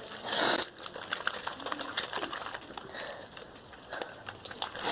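Glue-and-borax slime being mixed, giving many small irregular sticky clicks and squelches, with two louder swishes, one just after the start and one near the end.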